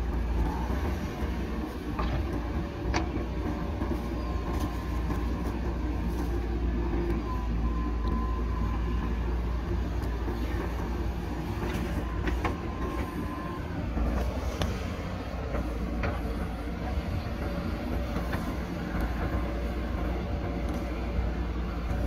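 JCB backhoe loader's diesel engine running steadily under load while the backhoe arm swings, dumps soil into a dump truck bed and digs back into the pile. A thin whine comes and goes, and there are several sharp clunks.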